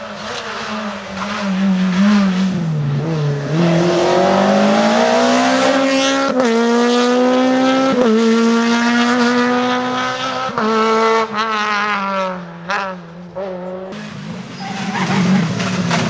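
Honda Civic rally car's engine revving hard under acceleration on a loose-surface stage, its pitch climbing steadily with brief dips at each gear change. The revs turn choppy and crackly near the end.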